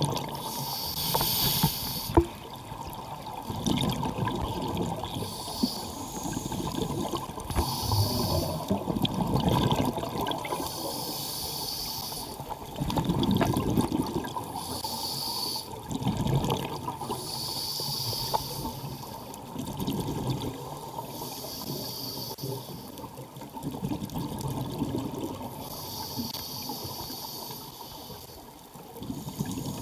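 Scuba regulator breathing underwater: a hissing inhalation and a bubbling exhalation repeat every two to three seconds.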